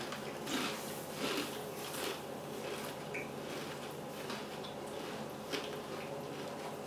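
Faint crunching and chewing of chocolate-dipped potato chips (Lay's Stax): a few short, irregular crackles, most of them in the first two seconds and one more about five and a half seconds in.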